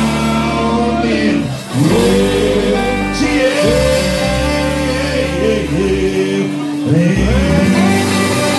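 Live band playing: men singing long held notes over acoustic and electric guitars and drums.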